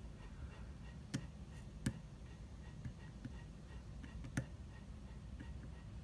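Hook pick and tension wrench working the pin stack of an SKS euro profile cylinder: three sharp metallic clicks, about a second in, just before two seconds and past four seconds, with faint light ticking between.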